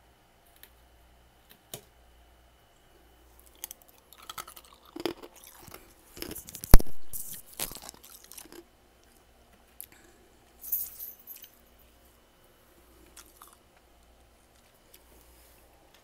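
Fluffy freezer frost crunching and crackling in irregular bursts, busiest in the middle with one sharp, loud crunch about seven seconds in and a smaller cluster around eleven seconds.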